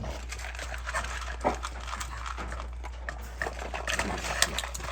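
American bully dogs eating dry kibble from bowls: irregular crunching and clicking as they chew and nose through the food.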